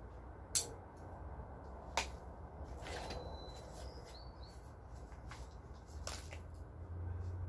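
Hand-transplanting sounds: soil scooped by a gloved hand and a seedling worked out of a small plastic nursery pot, with a few sharp clicks and taps over a steady low background rumble.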